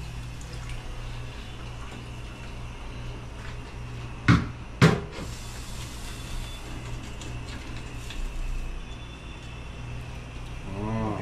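Two sharp knocks, about half a second apart, around four seconds in, over a steady low hum.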